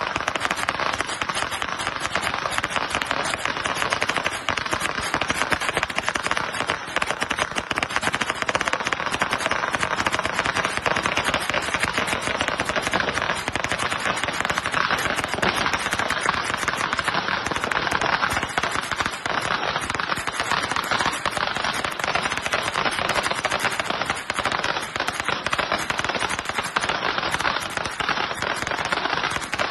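Chinese New Year fireworks crackling: a dense, unbroken run of rapid pops that holds steady in loudness.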